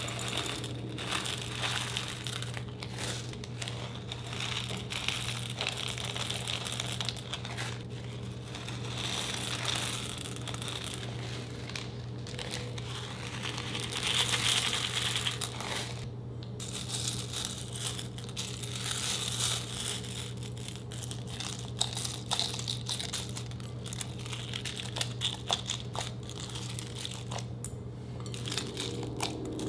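Small plastic zip bags crinkling as gel beads are poured from them into a bowl of glitter slime, with the beads pattering onto the slime in many small ticks. Near the end, a hand begins squishing the beads into the slime. A steady low hum runs underneath.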